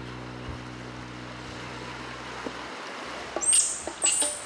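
A low, steady music drone with a soft beat about once a second, which cuts off about two-thirds of the way in. Near the end, high, sharp bird chirps start, each a quick downward-sweeping note, twice in quick succession.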